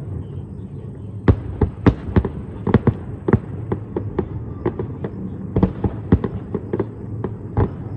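Aerial firework shells bursting in quick, irregular succession: sharp bangs several times a second over a steady low rumble.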